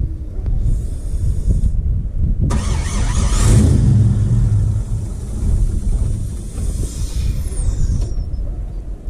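LS-swapped 5.3-litre V8 in a 1980 Camaro Z28 being started: it cranks, catches about two and a half seconds in, flares up in revs and settles to a steady idle.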